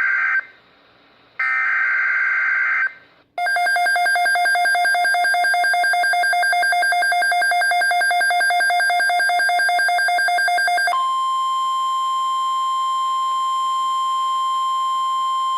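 Emergency Alert System signal on NOAA Weather Radio. It starts with two short buzzing bursts of SAME digital header data, then a rapidly pulsing electronic alert tone. About 11 seconds in this switches to a single steady high tone, the 1050 Hz weather-radio warning alarm tone, announcing a severe thunderstorm watch.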